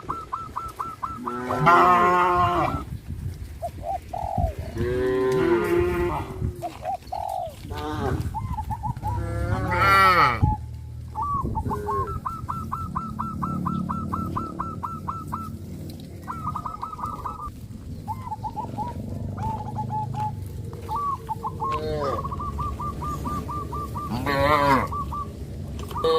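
A herd of cattle mooing, with several calls of differing pitch; the loudest come about two seconds in, ten seconds in and near the end. Between the moos there are runs of a fast, even, high-pitched chirping.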